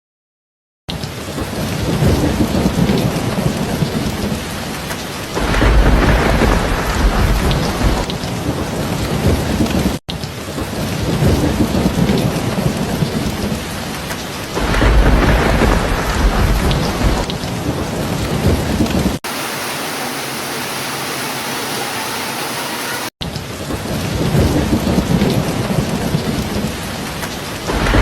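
Steady heavy rain with rolls of low thunder swelling in about three times. The sound drops out briefly at the start and jumps abruptly at a few splices where the looped recording is joined.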